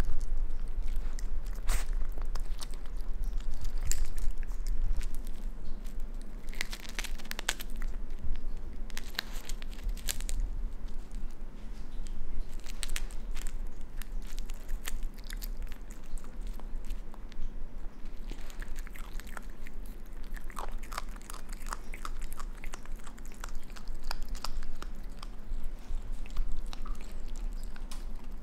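A raccoon chewing and crunching an insect held in its paws, with irregular crackling crunches throughout.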